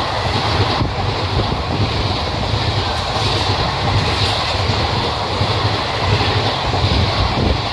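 ICF-type passenger coaches passing close by at speed: a loud, steady rumble with a clickety-clack rattle of wheels on the rails.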